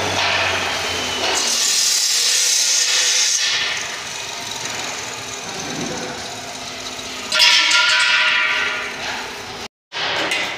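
Metalworking noise from steel frame fabrication: the steady hiss and crackle of welding, with a louder, harsher power-tool burst starting suddenly about seven seconds in and fading out shortly before a brief cut to silence.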